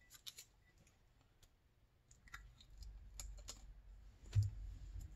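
Scattered light clicks and ticks of a small hand tool picking masking tape off powder-coated engine parts, with a louder knock about four seconds in.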